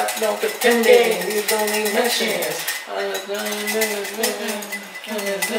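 Clinking and clattering of cutlery and dishes under background music with long held notes.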